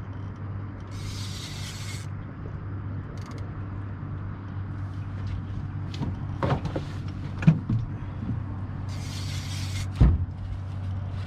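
Boat motor running steadily with a low hum, with two short bursts of hiss and a few sharp knocks.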